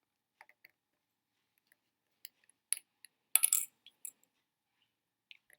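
Small hard plastic speedcube pieces clicking and clattering as they are handled: scattered light clicks, with a louder cluster of rattling clicks a little over three seconds in.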